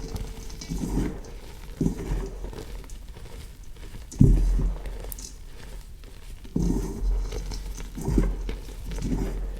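Reformed blue gym chalk being crushed: soft crunches and thuds at irregular intervals, the loudest about four seconds in.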